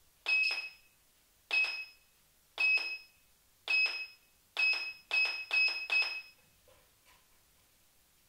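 Input-selector control board of a DIY TDA1541A DAC giving a short, high beep each time the front-panel select button is pressed, confirming a change of input source. Eight beeps, each starting with a click of the button: about one a second for the first four, then four in quick succession.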